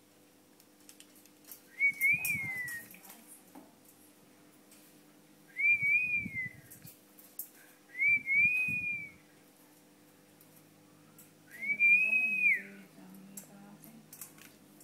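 Four long whistles a few seconds apart, each at a fairly high pitch that rises and then falls.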